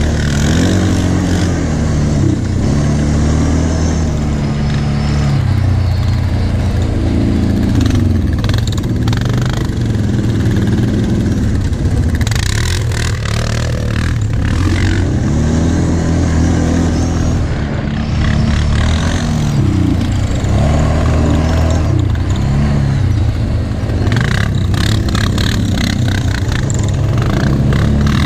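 An ATV's engine running under load on a rough sandy trail, its pitch rising and falling again and again as the throttle is opened and closed. Twice, near the middle and near the end, a rushing noise rises over it.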